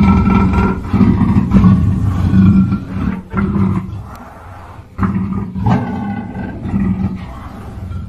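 Black panther roaring: a run of loud, deep calls for about three seconds, a quieter stretch around four seconds in, then a fresh loud call about five seconds in.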